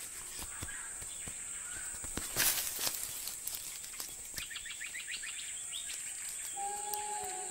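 Forest ambience: a steady high insect whine under scattered snaps and rustles, the loudest a crackle about a third of the way in, and a quick run of bird chirps in the middle. Soft held music notes come in near the end.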